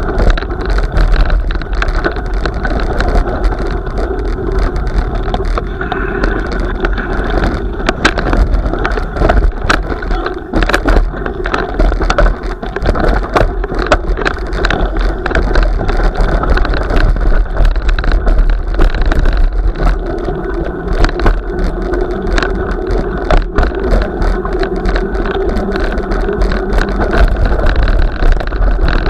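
Small vehicle rolling over bumpy packed snow and ice, with a steady running noise and frequent rattles and knocks from its frame and the camera mount.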